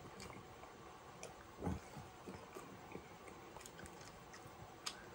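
A person chewing and biting into chicken wings close to the microphone: faint scattered mouth clicks and smacks, with one louder, low sound about a second and a half in.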